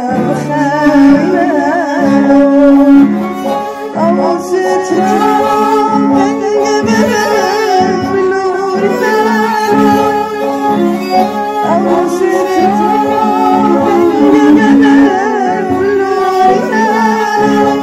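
A boy singing an ornamented melody, accompanied by two violins, an oud and an electronic keyboard, with steady held notes underneath the voice.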